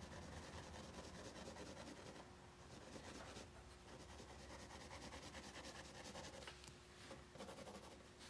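Faint rubbing of a wooden graphite pencil shading on drawing paper, over a faint steady hum.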